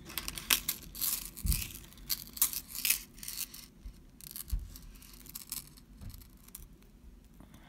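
A thin metal rolo chain necklace clicking and rustling as it is handled and untangled: a quick run of small clicks for the first few seconds, thinning out to a few scattered ones.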